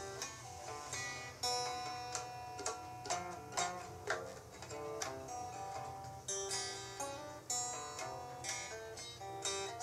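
Music played on a plucked string instrument, with single notes picked one after another.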